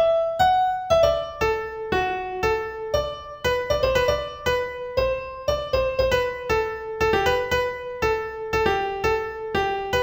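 Piano music: a slow melody of single struck notes, about two a second, each ringing and fading, over low bass notes.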